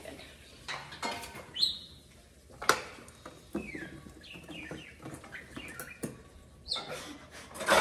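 Scattered kitchen handling noise: a few sharp knocks and clinks from a stainless steel mixing bowl, a knife and a plastic storage container being handled, with several short high squeaks in between.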